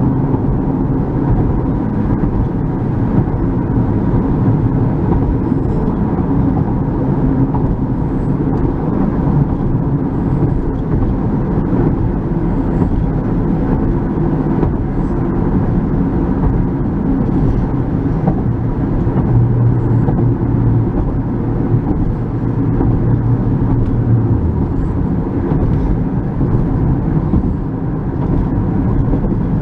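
Steady low rumble of a car driving along the road, heard from inside the cabin: tyre and engine noise, with a low hum that grows stronger for a few seconds past the middle.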